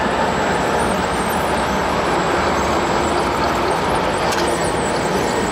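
Steady mechanical din of radio-controlled model construction vehicles at work, tipper trucks and a crawler bulldozer, over exhibition-hall background noise.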